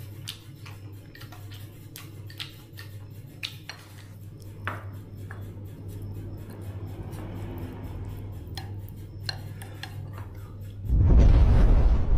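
Scattered clinks and clatter of dishes and cutlery over a steady low hum. About eleven seconds in, a sudden loud low rumble takes over.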